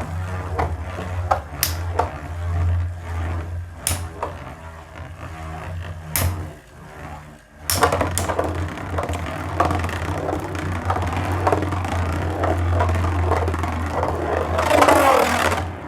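Beyblade spinning tops in a plastic stadium, with scattered clacks at first. About halfway through, the tops are launched and whir and clatter against each other and the stadium wall in rapid rattling collisions, growing louder just before the end. The battle comes out a draw.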